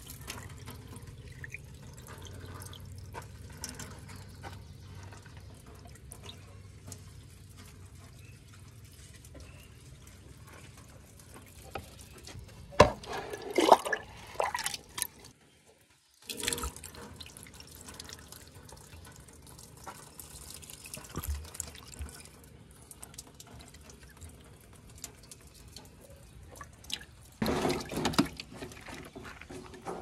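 Water poured from a plastic mug into a truck's plastic radiator tank, trickling and splashing into the filler neck. Two louder bursts of splashing and knocks come about halfway through and near the end.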